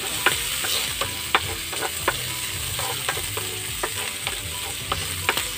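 Chicken gizzards and garlic sizzling in oil in a nonstick frying pan as a wooden spatula stirs them, with irregular sharp clicks of the spatula against the pan.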